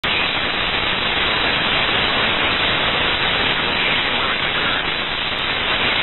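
Loud, steady radio static hiss from a NOAA Weather Radio broadcast, the sign of a poor, noisy signal.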